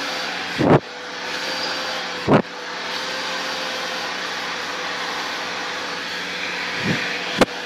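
Handheld hair dryer blowing steadily, with a steady hum under the rush of air. A few brief knocks sound over it, about one and two seconds in and twice near the end.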